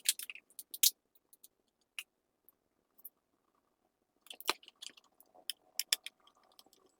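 Scattered small clicks and scrapes of a screwdriver working the screw of a laptop's plastic memory-slot cover, in a cluster near the start, a single click about two seconds in, and another cluster from about four to six seconds in.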